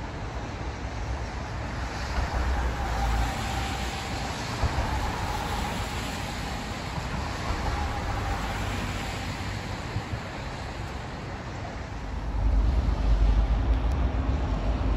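Steady distant road traffic noise, with a faint steady tone in the middle. About twelve seconds in, a louder low rumble takes over.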